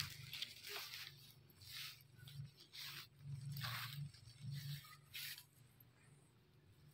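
Grass and dry leaves rustling in short, faint bursts, about seven times, with a low steady hum beneath.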